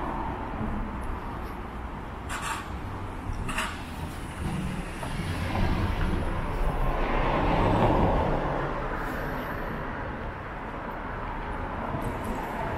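Street traffic: a vehicle passes, loudest a little past the middle, over a steady rumble. Two short, sharp high sounds come about two and three and a half seconds in.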